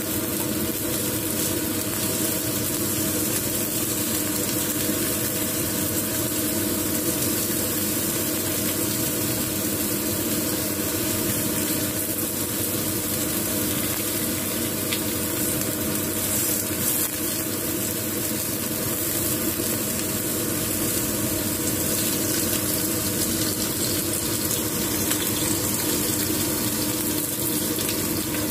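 Eggplant slices frying in oil in a nonstick pan: a steady sizzle, with a steady hum underneath.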